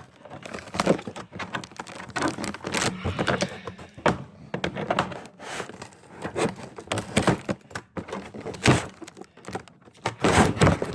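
Toy blaster parts and packaging being handled while unboxing: irregular plastic knocks and thunks mixed with crinkling and rustling.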